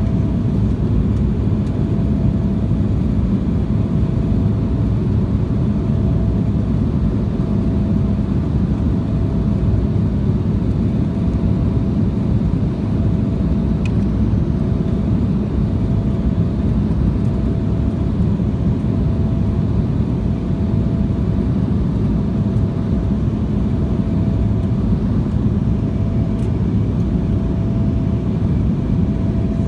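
Steady cabin noise of an Embraer 175 airliner in flight: its turbofan engines and the airflow give an even, low noise, with a faint tone that comes and goes.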